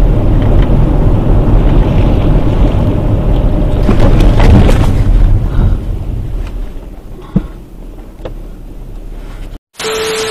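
Loud low rumble of wind buffeting and road noise on a car's dashcam microphone in a windstorm. It peaks about four seconds in as a tree falls across the road ahead, then eases as the car brakes to a crawl, with a sharp knock about seven seconds in.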